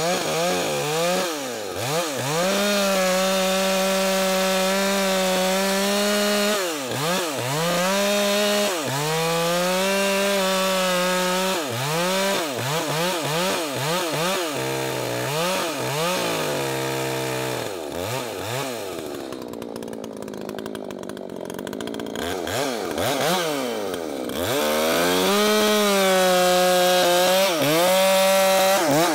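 Two-stroke chainsaw with a freshly sharpened chain cutting logs. The engine holds high and steady under load through each cut, and its revs dip and climb back between cuts. About two-thirds of the way in it drops to a lower speed for a few seconds, then revs back up into another cut.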